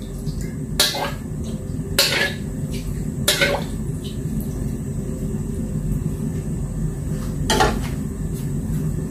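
A metal ladle clinks and scrapes against a wok as hot oil is swirled around it: three sharp strikes about a second apart in the first few seconds and one more near the end. A steady low rumble runs underneath.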